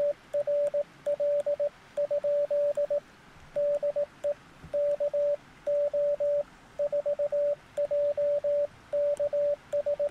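Morse code (CW) sidetone from a Recent RS-978 transceiver: a single steady beep keyed into dots and dashes by an iambic paddle, sending "QSL? DE KO4JKV", a call asking for confirmation of a contact, followed by the operator's callsign.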